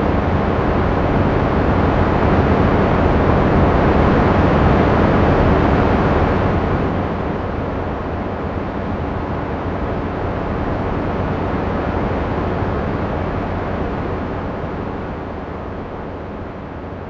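AI-generated wind sound made with PopPop to stand for the winds of Mars: a steady rushing hiss that eases down after about six seconds and sinks lower near the end.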